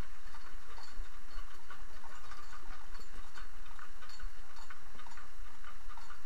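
Working horse walking along a dirt track, its hooves clip-clopping in an uneven rhythm over a steady low rumble.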